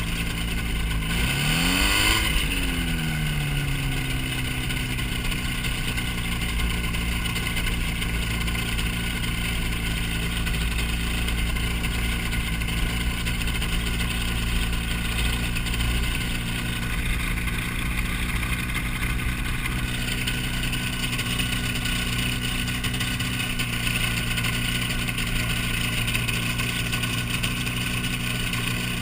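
Hy-Tek Hurricane ultralight airplane's engine droning steadily in flight, with a rush of air over it. About two seconds in, the pitch briefly rises and falls before settling back to the steady drone.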